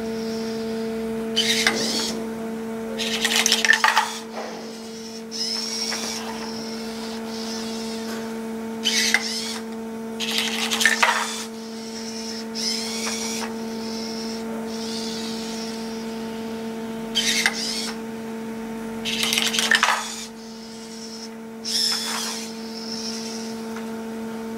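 Small robot's electric servo and drive motors whirring in short bursts, about ten times, over a steady low hum.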